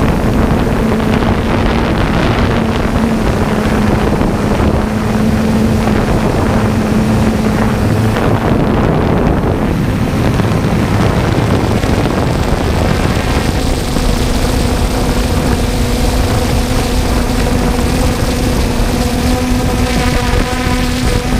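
Harvest machinery running with a steady engine drone. Its engine note steps slightly higher about two-thirds of the way through. Wind rumbles on the microphone.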